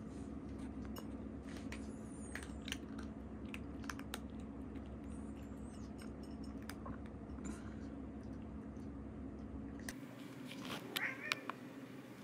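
Cats eating from ceramic bowls: chewing and scattered small clicks of food against the bowl, over a steady low hum.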